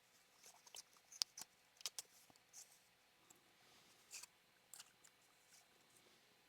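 Near silence with faint, scattered clicks and slides of Magic: The Gathering cards being handled and flipped through, a little busier in the first couple of seconds.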